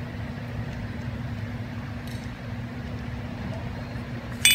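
Steady low hum, then near the end a single sharp metallic clink with a short ring, a steel part or tool set down on the workbench.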